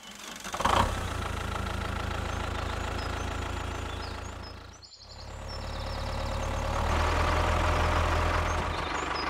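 Tractor engine running steadily with a low knocking drone; it fades away about halfway through, comes back, and runs louder in the last few seconds.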